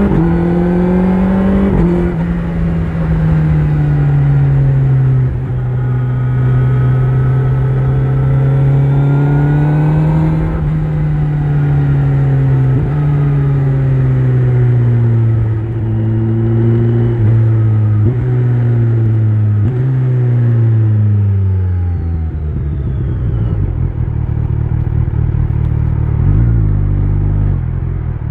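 Kawasaki Z900's inline-four engine through an Akrapovic exhaust, pulling through the gears: the engine note climbs, drops abruptly at each shift several times, and climbs again. Near the end it falls to a low, uneven note.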